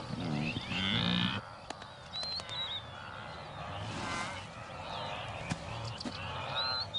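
Wildebeest calling: repeated nasal bleating and grunting calls, loudest in the first second and a half, then fainter calls from the herd. Small birds chirp now and then in the background.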